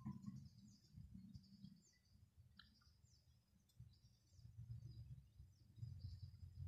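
Near silence: a faint low rumble, with faint short bird chirps scattered throughout.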